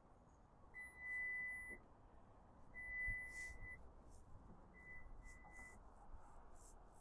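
Electronic beeps at one steady high pitch: two long tones of about a second each, then two short ones about five seconds in.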